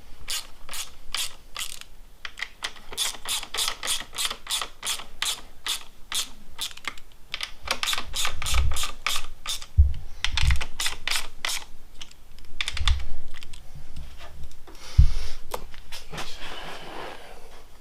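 Ratcheting torque wrench clicking in quick runs as the handlebar clamp bolts are tightened toward 20 N·m (177 in-lb), with a few dull thumps in between.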